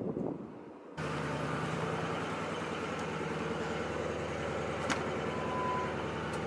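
Car on the move: steady engine and road noise starts abruptly about a second in and runs evenly, with one short click near the five-second mark.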